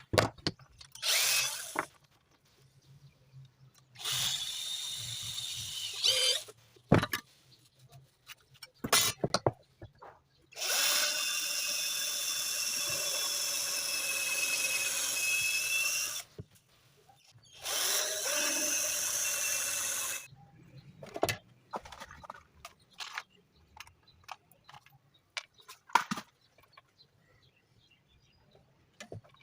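Handheld electric power tool run in four bursts, the longest about five and a half seconds near the middle, each a steady hiss with a high whine. Short knocks and clicks from handling the work come between the bursts.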